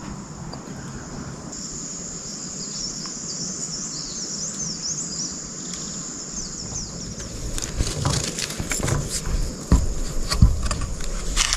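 A steady, high-pitched insect chorus in forest, with small chirps over it. From about two-thirds of the way in, a run of close knocks and clatter grows louder over it.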